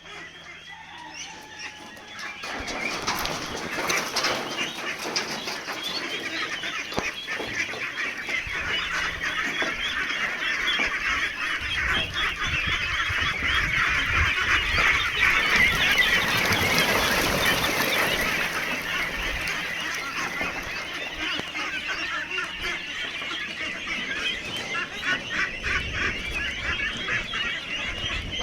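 A large flock of chickens in a poultry shed calling all at once, a dense, constant chatter of clucks and peeps that swells about two seconds in.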